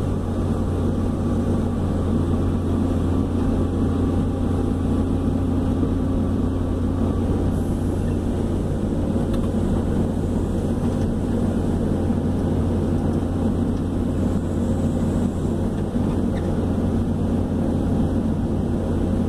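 Hydraulic excavator's diesel engine running steadily with a constant low hum, heard from inside the operator's cab as the machine works.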